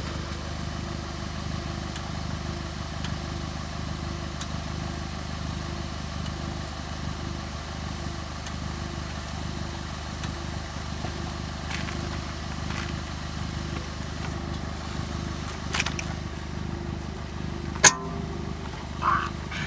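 A vehicle engine idling steadily, with a few sharp clicks and one loud knock about eighteen seconds in.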